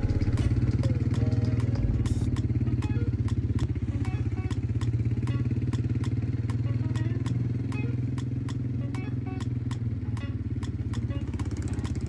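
ATV (quad bike) engine running steadily, a low drone that eases slightly in level about halfway through.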